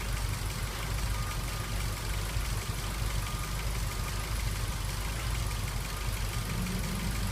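Ford Focus 1.6 petrol four-cylinder engine idling steadily with a misfire on cylinder 2, which the mechanic puts down to a faulty number 2 injector.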